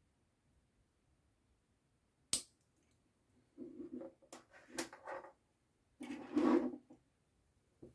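A sharp click, then pushbuttons, a relay socket and their cables being handled and shifted on a desk: knocks and rubbing in two bursts, loudest in the second half.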